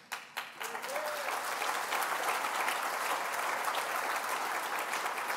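Audience applauding in a large hall, building over the first second or so and then holding steady.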